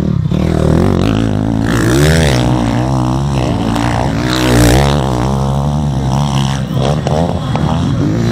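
Motocross motorcycles revving hard as they pass one after another, the engine note repeatedly rising and falling with throttle and gear changes, loudest about halfway through.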